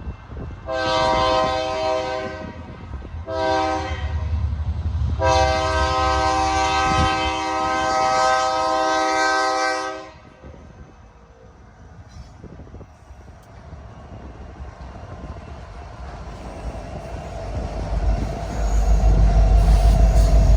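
Freight locomotive's multi-chime air horn sounding three blasts, long, short, long. Then the low rumble of the approaching train builds near the end.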